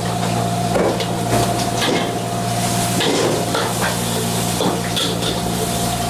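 Stir-frying in a wok: food sizzling while a metal spatula scrapes and clanks against the pan at irregular intervals, over a steady low hum.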